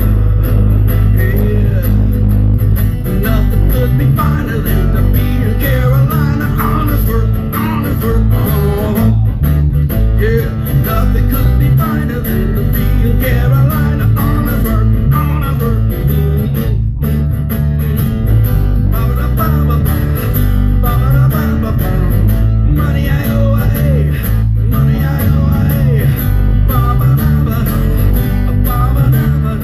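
Band music led by guitar over a bass line: an instrumental stretch of a blues-rock song with wavering lead guitar lines.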